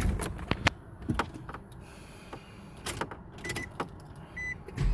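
Clicks and rattles of a car key being handled in a 2003 Nissan Altima, with two short high beeps. Right at the end the starter begins cranking the engine.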